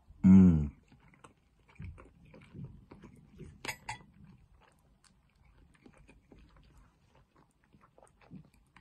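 A man gives a short, loud hum of enjoyment with his mouth full, then chews a mouthful of salad, with soft crunching and wet mouth clicks.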